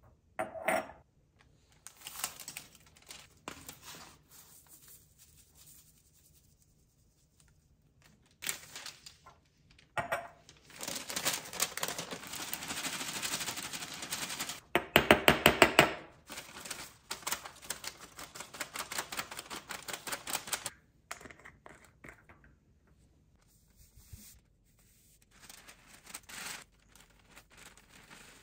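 Paper funnel rustling and tapping rapidly against a small glass spice jar as ground spice is shaken through it, the quickest and loudest run of taps about halfway through. Scattered knocks and clinks of glass jars and metal lids being handled.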